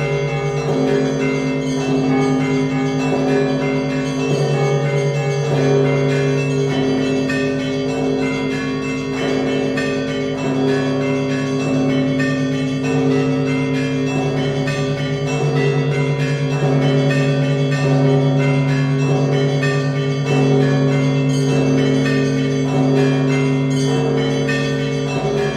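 Russian Orthodox monastery bells rung together in a feast-day peal (zvon). Low, heavy bells sound long sustained tones that change every second or two, under a rapid, continuous chiming of smaller bells.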